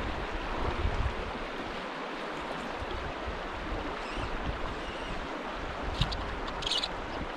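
Shallow mountain creek running over rocks: a steady rush of water, with wind buffeting the microphone in uneven gusts. A few short high clicks come near the end.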